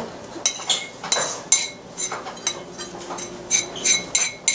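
A spoon scraping and clinking against a pot, about ten quick strikes with a bright ring, as the last of the sticky caramelized coconut mixture is scooped out.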